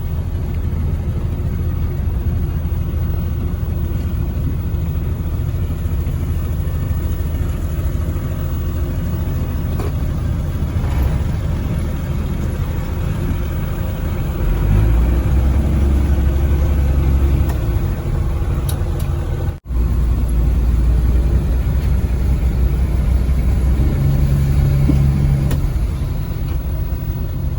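Engine running steadily with a low drone, growing louder for a few seconds around the middle and again later on; the sound cuts out for an instant about two-thirds of the way through.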